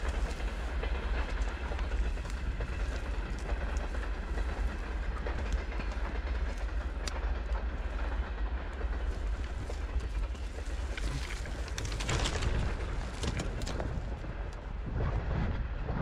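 Footsteps crunching through wet, thawing snow over a steady low rumble, louder for a moment about twelve seconds in and again near the end.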